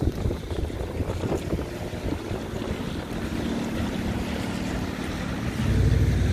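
Cars driving across a level crossing on a wet road, their tyres hissing on the wet pavement, with wind buffeting the microphone. About five and a half seconds in, a louder steady engine hum from a nearby vehicle comes up.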